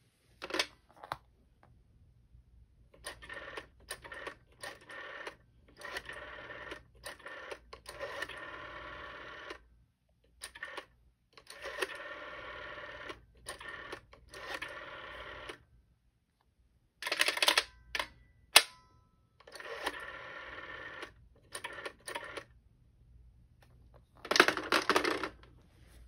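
1980s ITT rotary telephone being dialed over and over: the finger wheel is wound round and whirs back on its spring, in stretches of different lengths. There are sharp plastic clacks as the handset is lifted just after the start and the hookswitch is worked about seventeen seconds in, and a louder clatter near the end as the handset is set back on its cradle.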